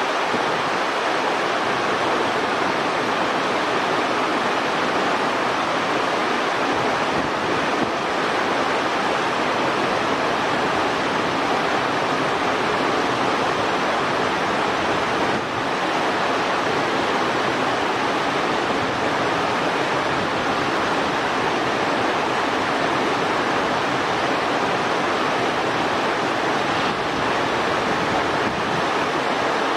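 Steady rushing noise of running water, with no single sound standing out.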